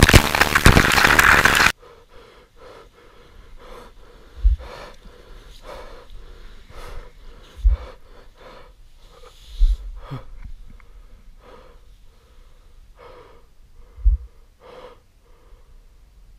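Background music that cuts off suddenly about two seconds in. After it comes a quiet stretch of short, soft sounds repeating about twice a second, with a few low thumps.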